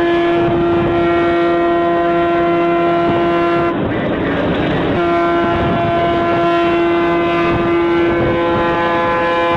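Ship's horn sounding a long, steady blast on one deep note that stops a little under four seconds in. A second long blast follows about a second later and carries on.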